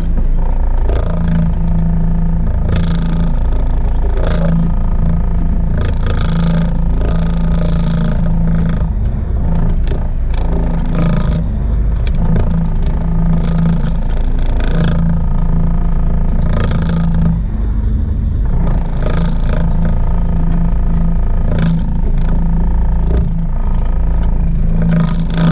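Steady low rumble of a fishing boat's engine, with wind buffeting the camera microphone and occasional knocks.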